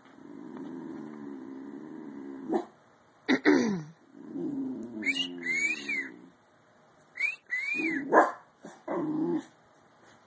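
Bull terrier puppy yawning out loud: a few long, low drawn-out vocal yawns broken by short gaps, with high squeaky whines rising and falling in the middle and near the end.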